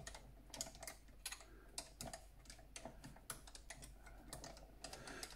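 Faint, irregular light clicking of the metal parts of an Optimum TU 2004V mini lathe's cross slide as it is worked by hand while its new nut's backlash adjuster is being set.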